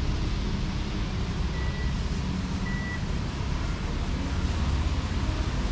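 Steady low rumble of street noise on a city road. About a second and a half in come two short high beeps, a second apart.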